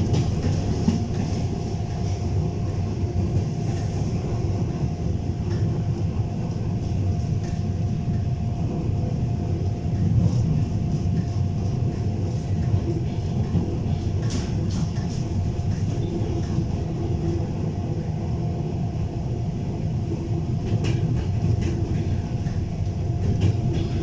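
EP3D electric multiple unit running at speed: a steady rumble of the carriage with the wheels clattering over the rail joints, and a steady hum held throughout.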